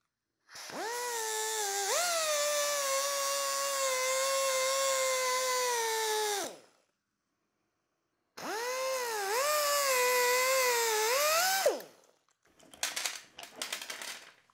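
Pneumatic die grinder run twice against a differential carrier bearing, about six seconds and then about three, its whine spinning up and dipping in pitch as it bites into the bearing cage to free the rollers. Near the end come a few light metallic clicks.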